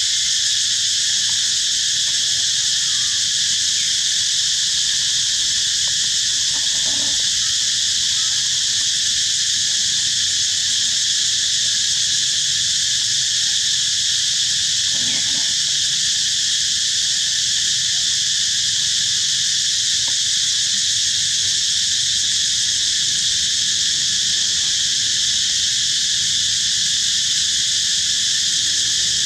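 Steady chorus of insects: a dense, high-pitched drone that holds at one level without a break.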